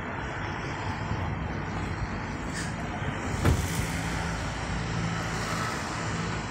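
Outdoor traffic noise: a steady rumble of road vehicles, with a vehicle's engine hum rising out of it about halfway through.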